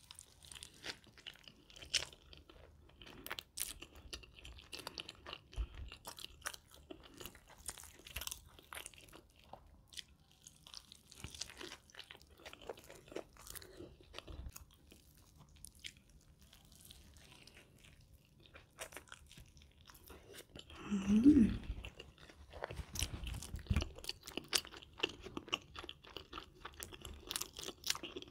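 Close-miked biting and chewing of a lava cheeseburger, with many small crunches and mouth clicks. One brief, louder low-pitched sound with a rising tone about three quarters of the way through.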